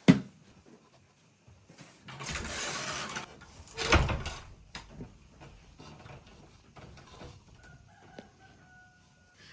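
A sharp knock right at the start, then a rustling, scraping noise and a louder clattering burst a little later. Near the end a rooster crows faintly in one long held call.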